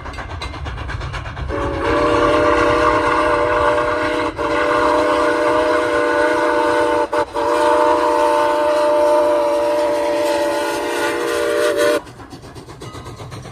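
Steam locomotive whistle on Strasburg Rail Road No. 89 blowing one long blast of about ten seconds, several notes sounding together, broken twice by brief gaps. A low rumble runs underneath.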